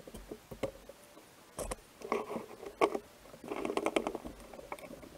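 Wooden segmented rings and an MDF disc being handled and fitted together on a lathe: light wood-on-wood clicks and knocks, with a short stretch of rubbing and scraping a little past halfway.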